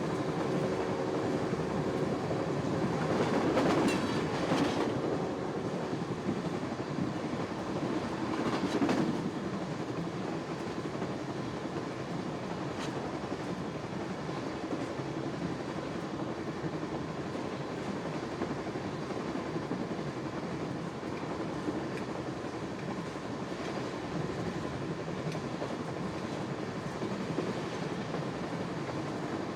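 Interior of a fast-moving train: steady rumble and clatter of the wheels on the rails. A distant train horn sounds over the first few seconds.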